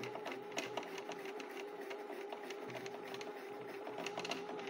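Bernette 92C computerized sewing machine running its bobbin winder: a steady motor whine with quick light ticking as white thread winds onto the bobbin, which she says is turning poorly.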